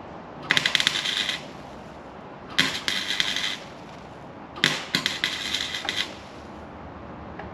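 Welding a steel patch onto a Toyota Hilux's rusted inner sill: three short bursts of crackling welding, each about a second long and about two seconds apart, the last a little longer.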